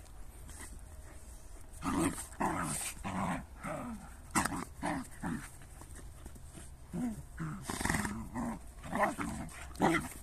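A Jagdterrier and a shepherd dog play-fighting, making a string of short growls, several a second, that starts about two seconds in.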